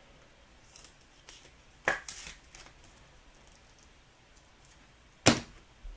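Trading cards and packs being handled on a table: two sharp taps or snaps, the second louder, with light rustling after the first.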